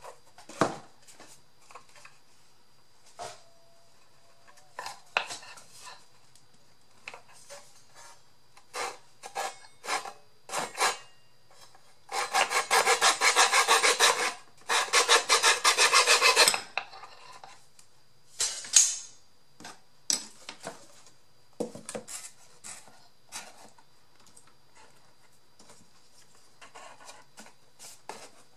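A small hand saw cutting a piece of wood with rapid back-and-forth strokes, in two bouts of a few seconds each about halfway through, among scattered knocks and handling clicks.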